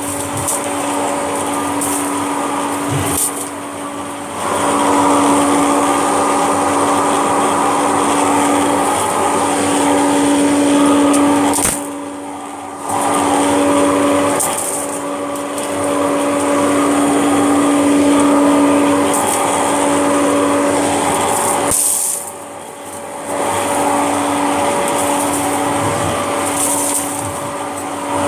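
Kirby G6 vacuum cleaner running with its hose attachment, a steady motor hum with a rush of air. The suction noise swells a few seconds in and drops away briefly twice, about 12 and 22 seconds in, as the air intake changes.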